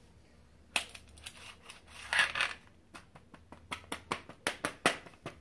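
Plastic knife cutting and scraping through kinetic sand in a tray: a run of short scrapes and clicks, one longer scrape about two seconds in, coming quicker over the last two seconds.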